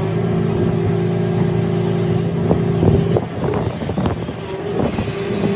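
An engine running steadily, with a cluster of knocks and clattering about halfway through.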